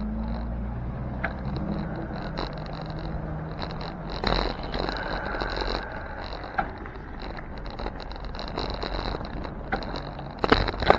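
City street traffic heard from a slowly rolling bicycle: an SUV's engine running just ahead, over a steady rumble of road noise. A sharp knock comes about four seconds in and a few louder clatters near the end.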